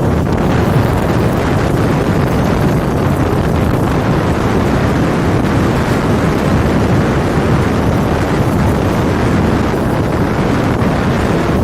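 Strong wind buffeting the microphone, a loud steady rush of noise with no letup.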